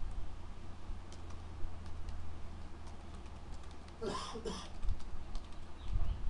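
Computer keyboard keys clicking in a short run of typing over a steady low hum. A brief voice-like sound comes about four seconds in.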